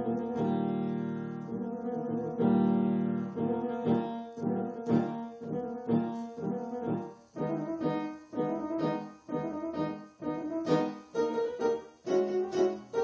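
Steinway grand piano with its lid closed, improvised in a Spanish style: two long held chords, then chords struck about twice a second.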